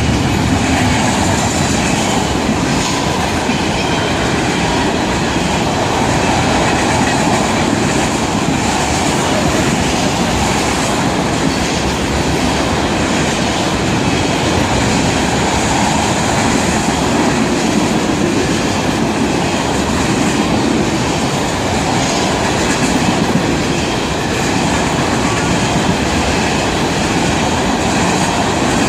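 Freight train cars rolling steadily past at close range: a continuous rumble of steel wheels on rail with clickety-clack over the rail joints.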